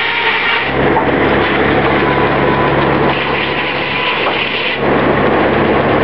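Large circular head saw of an early-20th-century Oxford Foundry & Machine Co. sawmill running and sawing eastern hemlock. The sound turns heavier and fuller from just under a second in, as the blade takes a cut, and eases back to a steadier running sound about five seconds in.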